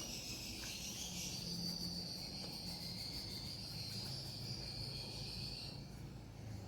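An insect trilling: one steady high-pitched trill that stops near the end, over a faint low hum.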